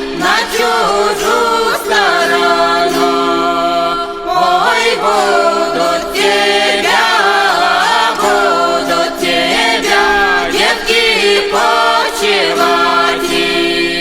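Background music: singing voices in a chant-like folk song over a steady low drone, with plucked strings that are presumably gusli.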